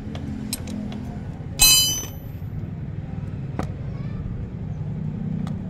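Ring spanner on a motorcycle's engine oil drain bolt: one sharp metallic clink with a brief ring about a second and a half in, and a few lighter clicks of the tool on the bolt, over a steady low hum.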